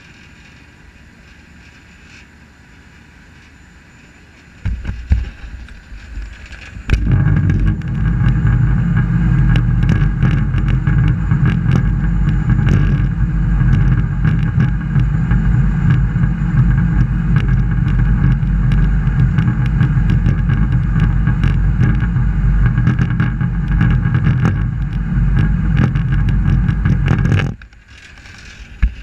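An engine running loud and steady at an unchanging speed, starting abruptly about seven seconds in after a shorter burst and cutting off suddenly near the end.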